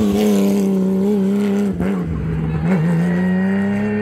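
Rally car engine running hard at high revs, its pitch sagging slowly with brief dips about two seconds in and near three seconds.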